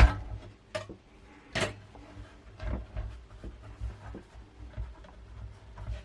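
Plastic clips of an LCD monitor's front frame clicking and snapping as they are prised loose, over low handling knocks. A string of sharp clicks, the loudest about a second and a half in.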